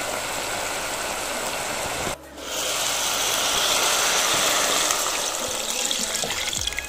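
Chunks of beef bubbling in their juices in a pot, then, after a short break, a stream of water gushing into the pot over the meat, louder than the bubbling.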